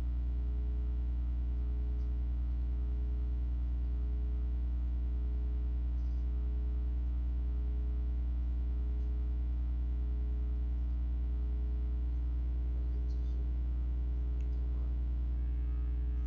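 Steady low electrical mains hum with a stack of evenly spaced overtones, picked up on the recording, with a few faint clicks scattered through.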